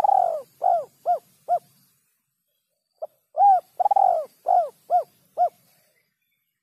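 Spotted dove (terkukur) cooing. The first phrase ends with three coos over the first second and a half. About three seconds in, a new phrase starts with a short clipped note, followed by two long coos and three shorter ones coming quicker.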